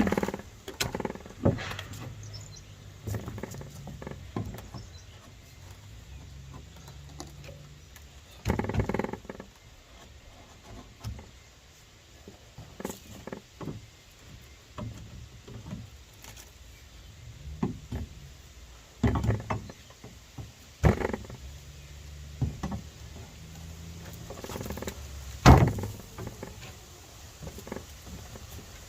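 Irregular knocks and thuds of old wooden deck boards being pried up off their nails, with the loudest knock near the end.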